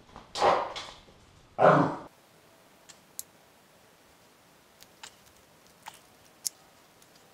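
A man's forceful exhale and then a short grunt of effort as he pushes a timing chain tensioner back, followed by a few light, scattered metal clicks from the screwdriver and engine parts.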